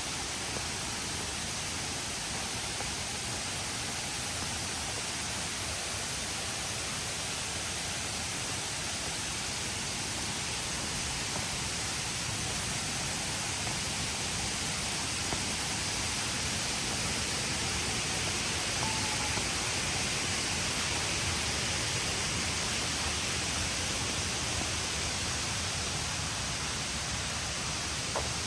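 Steady rushing of waterfall water, an even hiss that swells slightly in the second half.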